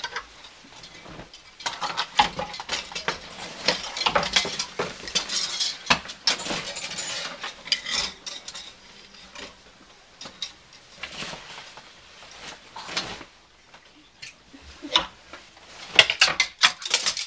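Wire and wooden coat hangers clinking and clattering against each other and scraping on the metal closet rod as coats are pulled off them, in irregular flurries with a quieter spell before a last burst of clinks near the end.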